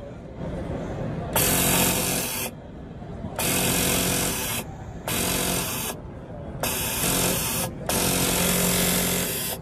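Juki MF-3620 four-needle flatseam sewing machine stitching fabric in five short runs of about a second each, stopping briefly in between.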